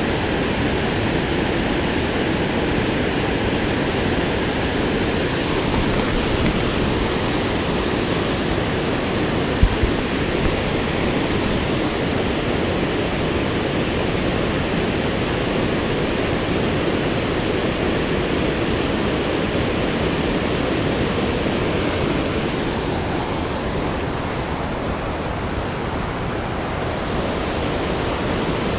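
Steady rush of high river water pouring through the lock and dam, with one brief knock about ten seconds in.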